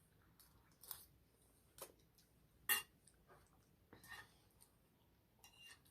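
Quiet eating at a table: a few scattered, short clicks and clinks of tableware, about a second apart, the loudest about three seconds in.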